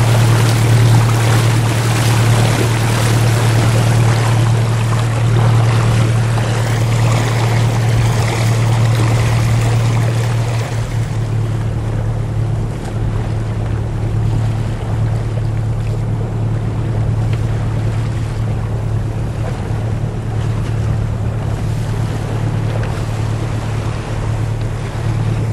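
Water rushing and splashing along a sailing yacht's hull, heavier for the first ten seconds or so and then calmer, over a steady low hum.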